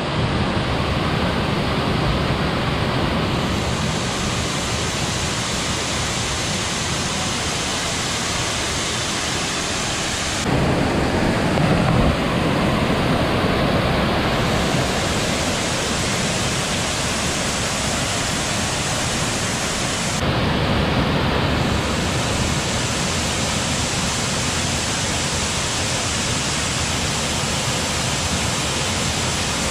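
Waterfall pouring over rock ledges into a pool: a steady rush of falling water, its tone shifting abruptly about ten and twenty seconds in.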